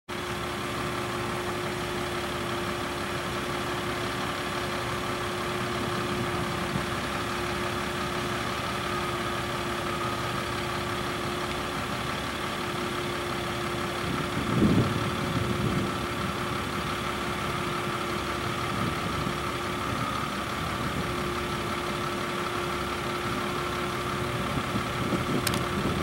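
An engine idling steadily with a constant tone over a noisy bed, swelling louder briefly about halfway through; a sharp click just before the end.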